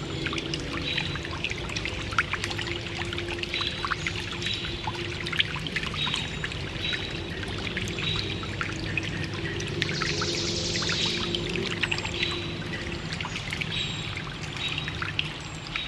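Small stream trickling and gurgling over stones, steady throughout with many small splashes. Birds chirp high above it, with a brief burst of rapid high chirping about ten seconds in.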